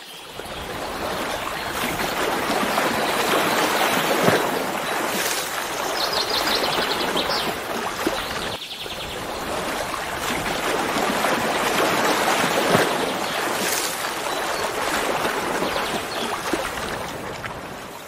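Rushing water of a waterfall, a dense steady hiss that swells and eases, with a brief dip about halfway through. A short burst of rapid high chirping comes about a third of the way in.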